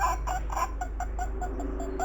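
An animal's rapid series of short, falling calls, about six a second, over a steady low hum.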